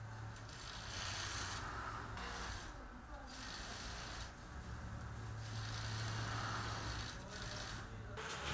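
Plastic needles of artificial Christmas tree branches rustling and scraping in repeated rasping strokes, each about a second long, as they are worked at a branch-twisting machine, over a steady low hum.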